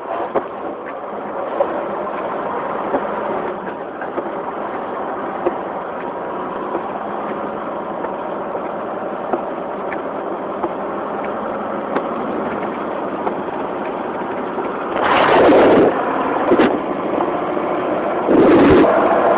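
Hail and rain pelting down as a steady noise, with scattered sharp hits of hailstones striking. The noise swells louder twice near the end.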